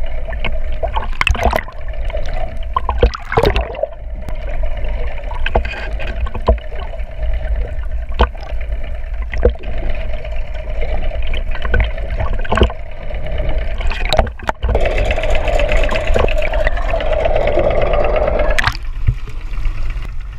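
Water rushing and gurgling over a GoPro camera housing pulled along just under the surface, with a steady hum and scattered sharp clicks and knocks. Near the end the camera breaks the surface and the underwater wash cuts off.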